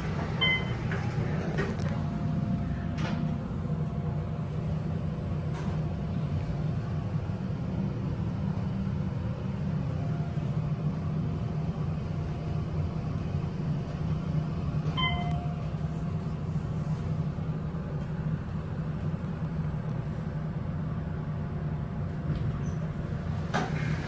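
Otis elevator ride heard from inside the car: a steady low hum as it travels, with a short chime about half a second in and another about fifteen seconds in. The doors slide open near the end.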